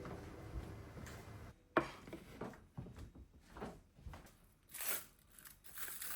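Faint, irregular handling sounds: about ten short light knocks and rustles spaced unevenly across a few seconds, the sharpest one about two seconds in.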